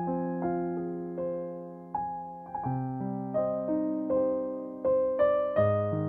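Background piano music: single notes and chords struck one after another at an unhurried pace, each ringing and fading.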